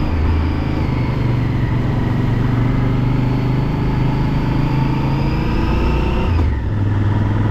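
Honda XL1000V Varadero's V-twin engine running under way, its note climbing slightly and then dropping sharply about six seconds in.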